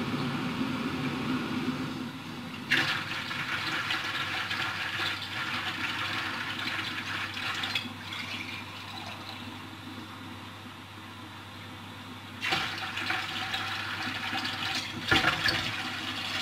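Water running steadily and filling a container, with three sharp knocks of handling: one near the start and two near the end.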